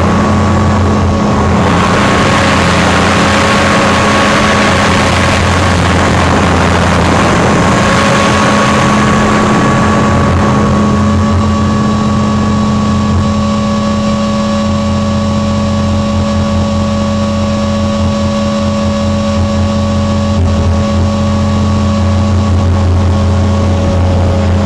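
Onboard sound of a T-Rex 500 RC helicopter in flight: the steady drone of its motor and rotor with a constant whine over it. A rushing hiss of air is strong at first and eases off about ten seconds in.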